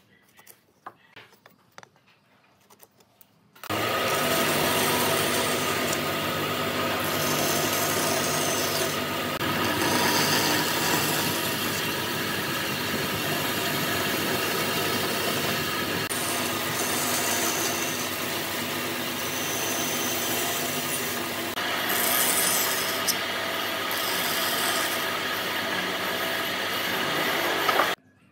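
Band saw running and cutting through a thick curved wooden block: a steady motor tone under the rasp of the blade in the wood. It starts a few seconds in, after some faint taps, and stops abruptly near the end.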